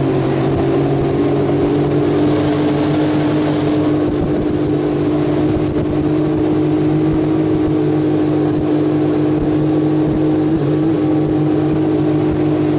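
Suzuki outboard motor running at a steady speed, driving a PVC inflatable boat. A brief rush of hiss comes about two seconds in.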